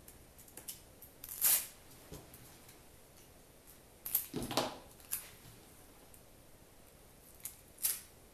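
Short rasps and rustles of hands handling a roll of adhesive tape, scissors and string on a table top: one about a second and a half in, a cluster around four to five seconds, and one near the end.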